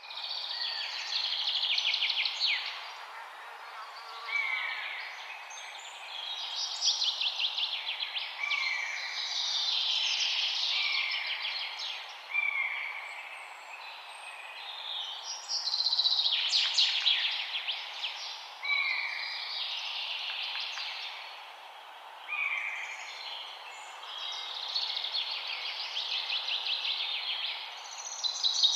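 Songbirds singing: long, rapid trilling phrases of two to three seconds alternate with short, repeated falling notes, with a steady faint hiss of background noise underneath.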